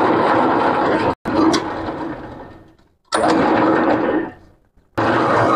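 Metal lathe running while a single-point tool bit cuts a 4 mm pitch metric thread into a turned metal shaft. The sound is a steady machine noise that starts abruptly, fades off and drops out several times.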